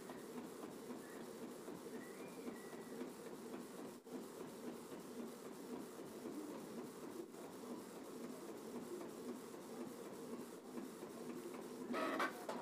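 Canon Pixma G3060 ink tank printer printing a photo on glossy paper: a faint, steady mechanical running of the print head and paper feed as the sheet feeds out. A brief louder sound comes near the end.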